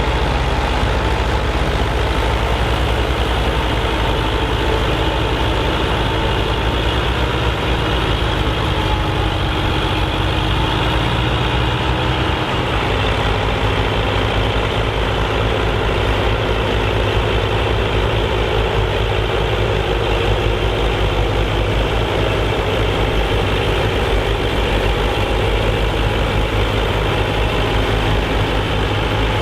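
Massey Ferguson 65 tandem tractor's engines running steadily while pulling a plough. The engine note shifts about twelve seconds in.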